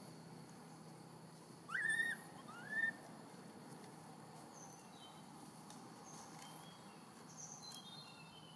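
Newborn long-tailed macaque crying: two short calls about two seconds in, each rising and then held, over faint chirps in the background.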